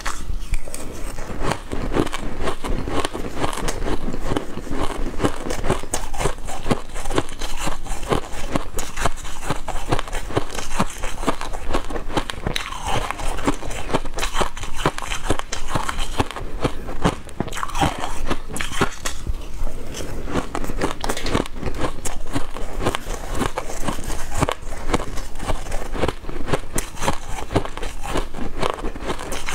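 Close chewing and crunching of mouthfuls of crushed ice, a dense run of crackly crunches that goes on without a break.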